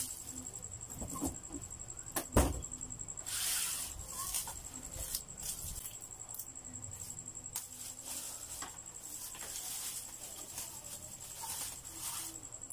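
Handling and unwrapping of a plastic-wrapped speaker: crinkling plastic wrap and scattered clicks, with one loud knock about two seconds in.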